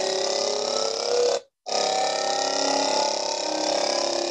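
Small vibration-driven cylinder buzzing as it vibrates along inside a plastic tube, its rubber rings rubbing the tube wall: a dense rough hum with a few tones slowly rising in pitch. The sound cuts off about a second and a half in and starts over a moment later as the short clip replays.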